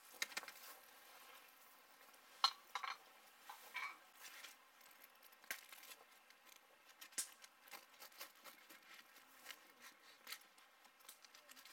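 Hot sandwich maker opened and the toasted sandwich dropped onto a paper plate, then a knife sawing through the crisp toasted crust. Scattered light clicks and scrapes, with a few louder knocks a couple of seconds in.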